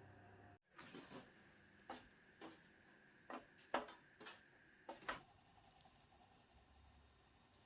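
Light handling noises, as of kitchen items being set down and moved: a string of about ten short taps and clicks, irregularly spaced, stopping about five seconds in.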